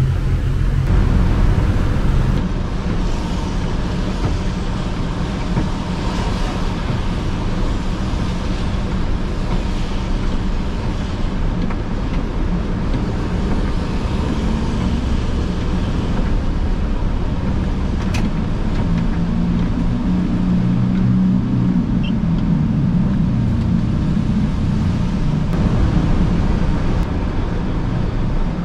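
A vehicle driving on rain-wet city streets: a steady low rumble of engine and tyre noise, with one sharp click about two-thirds of the way through.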